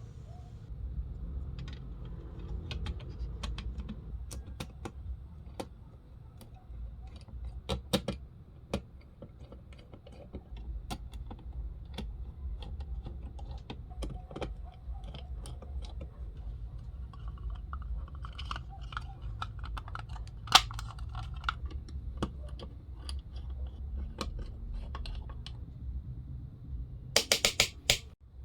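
Scattered clicks and light knocks of small hard objects being handled, over a low rumble, with a quick run of sharp clicks near the end.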